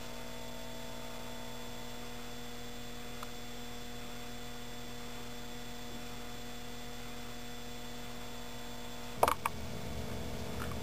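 Steady electrical hum from the ballast running a lit 70-watt high-pressure sodium lamp, with a few brief rustling knocks about nine seconds in.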